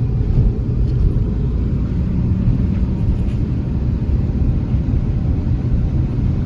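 Steady low rumble of a car driving along the road, road and engine noise with no sharp events.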